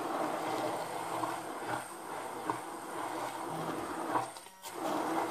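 Cuisinart Smart Stick cordless hand blender running steadily in a beaker, its blade blending fresh and frozen fruit into a smoothie. It cuts out briefly about four seconds in, then starts again.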